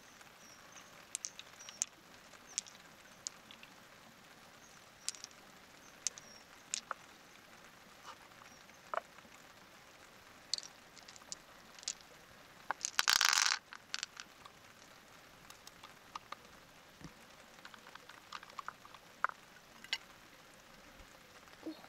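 Scattered light clicks and taps of mussel shells being handled and opened by hand, with one louder, half-second scraping rasp about 13 seconds in.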